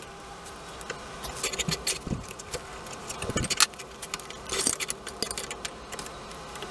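Metal clinks and rattles of a drill press being set up by hand: a twist drill bit handled at the chuck, then the vise's steel screw handle cranked. The sounds come as irregular clusters of sharp clicks.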